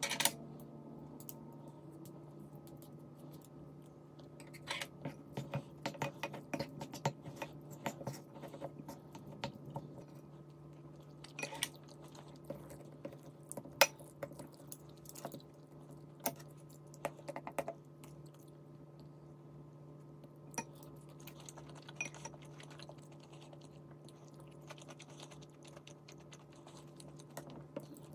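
Eating at the table: irregular small clicks of utensils against dishes, in spells, with some chewing, over a steady low hum.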